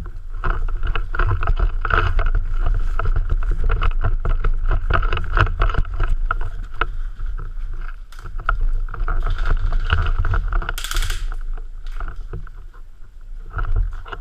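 Camera jostled as its wearer runs: a steady low rumble of wind and handling noise on the microphone, with rapid rattling and knocking from gear, and a short hiss about three quarters of the way through.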